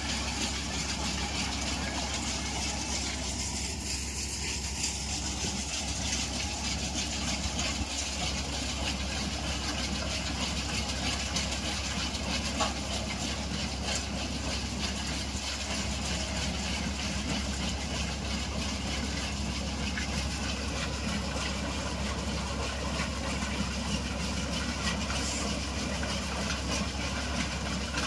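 A tractor's diesel engine runs steadily, driving a groundnut thresher whose drum turns under a constant load as peanut plants are fed through it.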